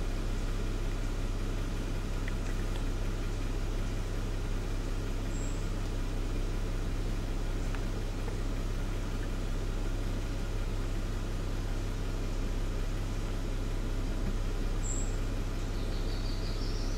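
Steady low rumble and hum of outdoor background noise, with a few brief high-pitched chirps of a small bird and a short rising run of high notes near the end.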